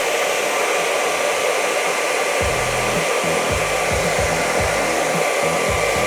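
Hairdryer running steadily on a low fan setting, blowing hot air into a homemade tin-can popcorn popper.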